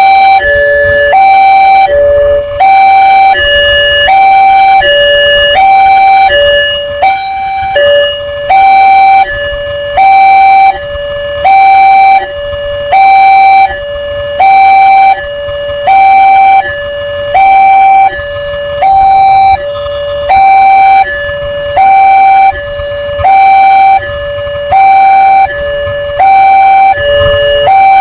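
Indonesian railroad level-crossing warning alarm sounding a steady two-tone hi-lo signal, alternating a higher and a lower tone about every three quarters of a second: the crossing is active and the barriers are down or coming down for a train.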